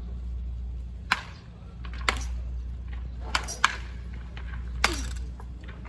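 Baseball bats hitting balls in batting practice: five sharp cracks at uneven intervals, two of them close together midway, over a low steady rumble.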